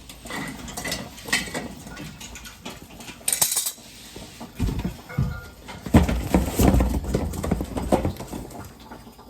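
Metal clanks, knocks and scraping as a drained boiler expansion tank is worked loose and taken off its fitting, with a short hiss about three and a half seconds in and a busier run of thumps and knocks near the end.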